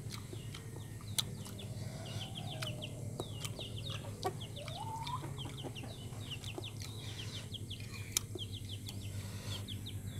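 Chickens clucking, with quick high falling chirps repeated throughout and a couple of short rising calls in the middle. A spoon clinks sharply against the plate a few times.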